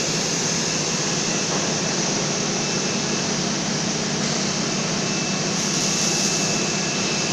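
Two-torch gantry submerged-arc beam welding station running: a steady, even hiss over a low hum, with a faint thin high whine at times.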